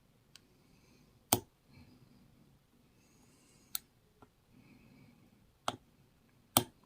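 Lock picks working inside a small Ace padlock: about six sharp metallic clicks at uneven intervals, the loudest about a second in and near the end, with faint scraping between them as the pins are picked one at a time.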